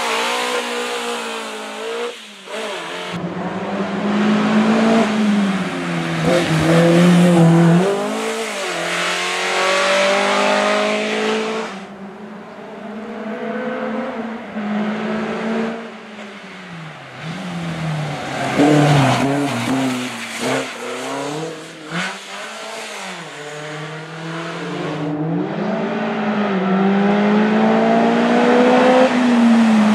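Race car's engine revving hard on a hill climb, its pitch climbing and then dropping back at each gear change, over several runs through the bends.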